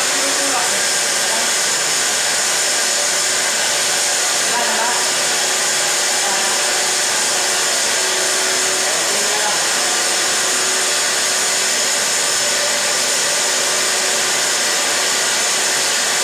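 Electric soap extruder running: its motor and feed screw make a steady whir while a soap log is pushed out through the nozzle.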